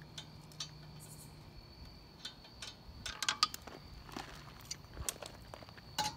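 Lug nuts being taken off a car wheel: scattered light clicks and clinks, with a quick cluster of them about three seconds in and another sharp click near the end.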